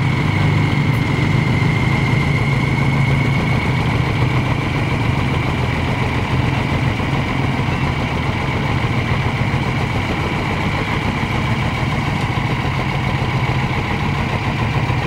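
Large lifted mud-bogging truck's engine idling steadily, with a steady high-pitched whine above the low hum.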